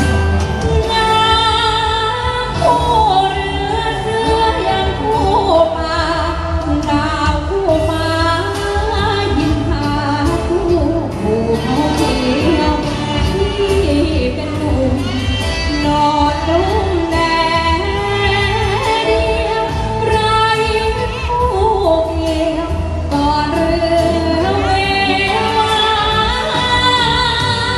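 A Thai luk thung song sung live into a microphone over a band backing with steady bass and drums; the voice holds long notes with vibrato.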